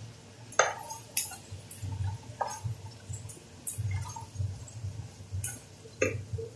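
Wooden spatula stirring vegetables in a metal pan with a little water in it: wet stirring with a few sharp knocks of the spatula against the pan.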